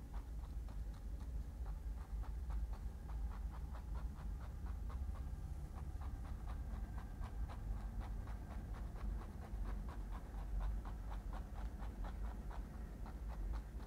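Paintbrush working quickly against a canvas: a long run of short scratchy ticks, about five a second, over a steady low hum.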